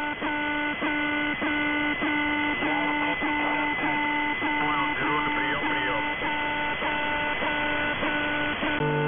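Shortwave radio signal of the Russian military channel 'The Alarm' on 4770 kHz, heard in upper sideband: a buzzy multi-tone channel marker that breaks off briefly about every 0.6 s. A faint, distorted voice comes through under it around the middle.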